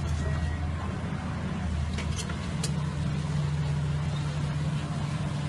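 Heavy diesel engine of a tracked hydraulic excavator running steadily under load, with its low hum shifting slightly about two and a half seconds in. A few faint knocks sound around two seconds in.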